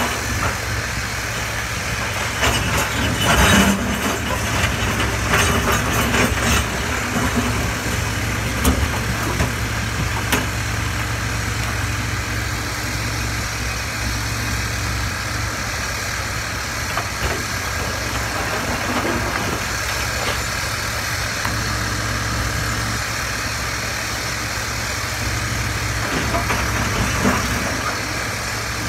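Komatsu PC350 excavator's diesel engine running steadily alongside a dump truck's idling engine, with rocks knocking and clattering several times in the first ten seconds or so.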